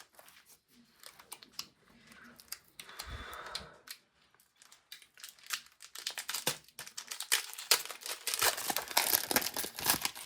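Foil wrapper of a Pokémon trading-card booster pack being handled and torn open. It rustles faintly at first, then crinkles and crackles steadily through the last few seconds.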